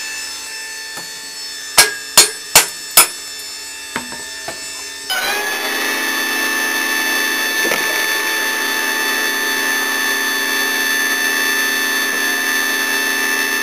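Electric motor and hydraulic pump of a homemade press power pack running with a steady whine; about five seconds in the whine jumps louder and fuller and holds there, as the pump works under load. Before that, four sharp knocks land in quick succession, about two seconds in.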